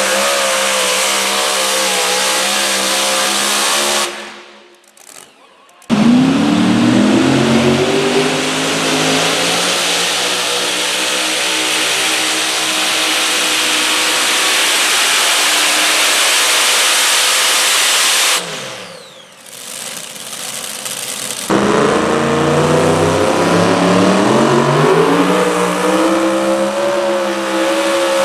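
Supercharged pulling vehicles running wide open, one run after another: a modified two-wheel-drive pickup, then an unlimited modified tractor with several supercharged engines, then another modified truck. Twice the sound drops away briefly and a new run starts, its engine note climbing steadily in pitch as it pulls away.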